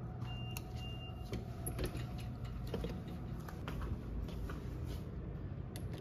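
Low steady background rumble with scattered faint clicks and handling knocks, and two short high-pitched beeps about half a second in.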